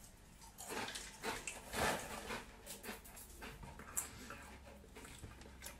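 Mouth chewing a handful of dry crisped rice cereal (White Chocolate Coco Pops), with faint, irregular crunches.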